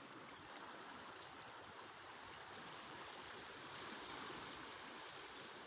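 Floodwater running across flooded rice paddies: a faint, steady rushing that swells slightly about four seconds in.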